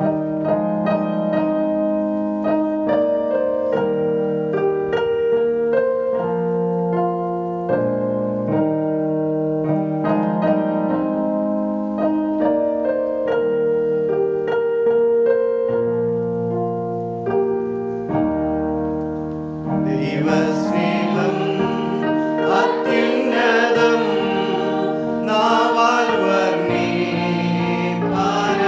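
Electronic keyboard playing the introduction of a Malayalam song, a melody over held chords. About twenty seconds in, a group of voices begins singing along with the keyboard.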